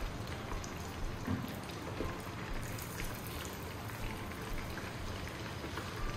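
Chicken pieces deep-frying in a small pot of hot oil: a steady crackling sizzle with scattered small clicks.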